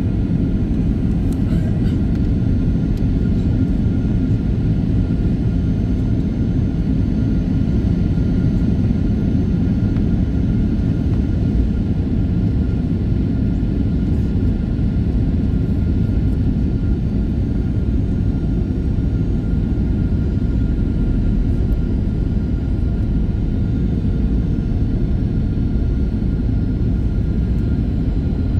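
Steady in-flight cabin noise of a Boeing 737-800: a constant low rumble of airflow and its CFM56 engines, with a faint steady whine over it.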